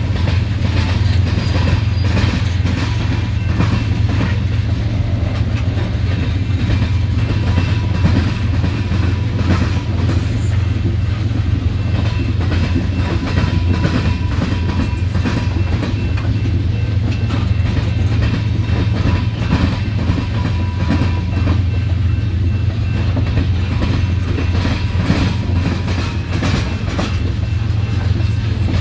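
CSX freight train's tank cars and open-top hopper cars rolling past with a steady low rumble. Their steel wheels clack rapidly over the diamond crossing with the Norfolk Southern line, and there is a faint thin ring from wheel on rail.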